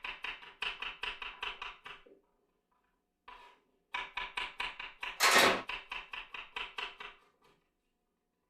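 A rapid series of sharp knocks or taps, about five a second, in two runs with a pause between; a louder, noisier thump lands in the middle of the second run.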